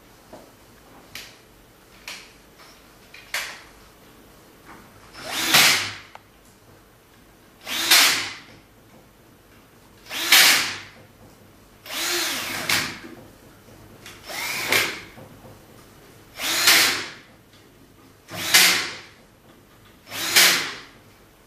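Cordless drill/driver running screws in, in about eight short bursts roughly two seconds apart, its motor pitch rising and falling in some of them. A few light clicks of parts and screws being handled come before the first burst.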